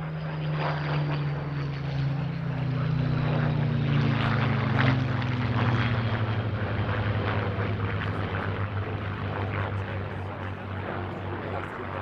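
Supermarine Spitfire Mk IX's Rolls-Royce Merlin V12 engine as the fighter flies past. The engine note slowly drops in pitch as it passes, loudest about halfway through and then fading.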